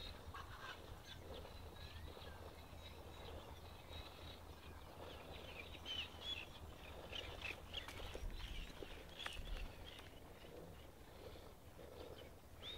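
Quiet outdoor ambience with scattered short bird chirps, busiest in the middle, over a low steady rumble.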